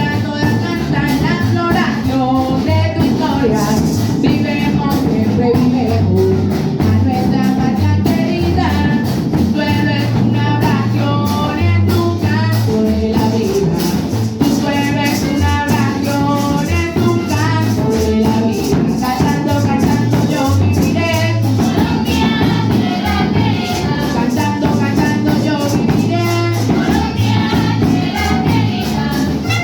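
Symphony orchestra playing a Colombian cumbia, with a steady bass pattern and rattle-like percussion under the melody, and possibly voices singing along.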